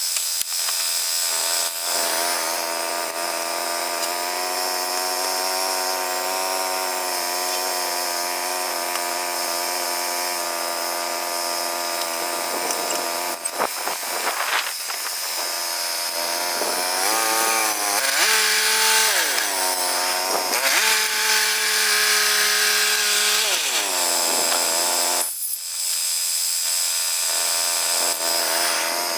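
Woodland Mills HM122 portable bandsaw mill running, its gas engine driving the band blade through a cedar log. Past the middle the engine note sags and recovers several times.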